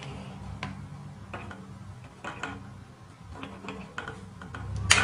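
Scissors trimming the leftover ends of the rubber strips tied onto a wooden slingshot fork, with handling of the rubber: about ten small, irregular clicks and snips, the loudest near the end.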